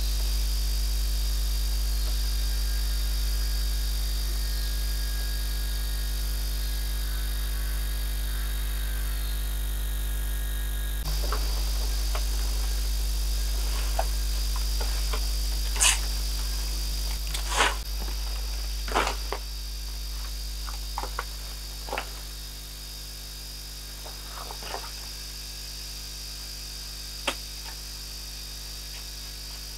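Steady high drone of forest insects over a low rumble. From about halfway through come scattered sharp knocks and rustles of bamboo poles and palm fronds being handled on a bamboo shelter frame.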